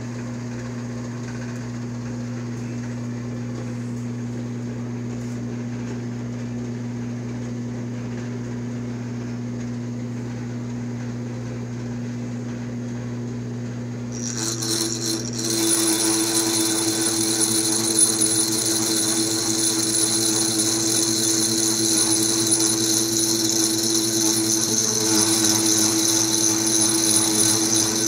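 Horizontal milling machine running with a slitting saw on its arbor, a steady hum. About halfway through, the saw starts cutting a slot in a metal tube held in the vise, and a loud, high-pitched cutting whine sets in and keeps on over the hum.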